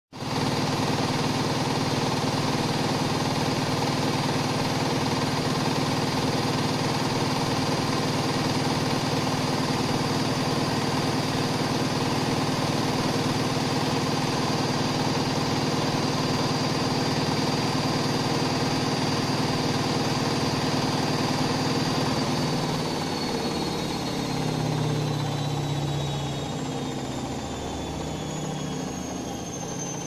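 Bosch front-loading washing machine on its spin cycle: the drum spins at steady high speed with a constant high whine over a low hum. About two-thirds of the way through the spin slows, the whine falling in pitch and the sound getting quieter.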